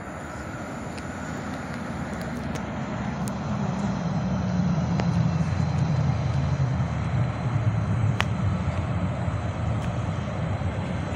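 A passing train's low rumble that swells over the first few seconds and then holds, with a few sharp clicks, the loudest about eight seconds in.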